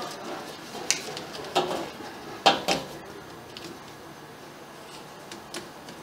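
Corrugated plastic drain hose of a front-loading washing machine being handled and bent into its plastic hose supporter: a few sharp plastic clicks and rustles over the first three seconds, the loudest about two and a half seconds in, then a couple of faint ticks.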